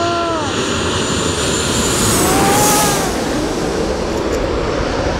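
Twin-engine jet airliner on landing approach passing low overhead: a loud turbofan roar that peaks about two and a half seconds in, with a high whine dropping in pitch as it goes over, then continuing as it moves away.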